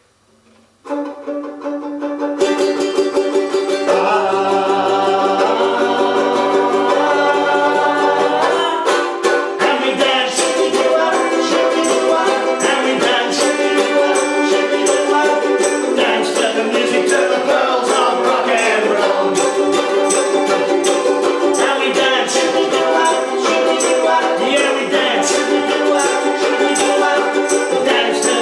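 Acoustic folk band playing a rock 'n' roll song on ukulele, banjo, fiddle and tambourine, with several voices singing together. After about a second of quiet, held notes come in, and the full band with the tambourine shaking in steady rhythm joins about nine seconds in.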